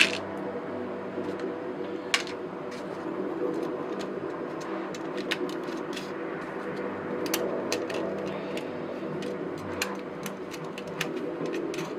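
Light clicks and clinks of small parts being handled on a workbench during kit assembly, scattered irregularly, the loudest about two seconds in, over a steady low hum.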